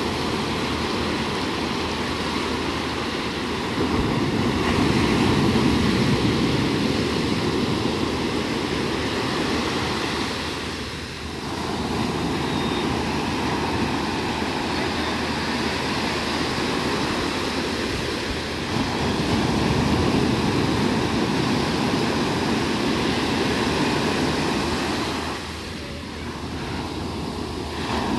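Sea waves breaking and washing up a sandy beach: a steady rush of surf that swells and eases, dropping briefly about eleven seconds in and again near the end.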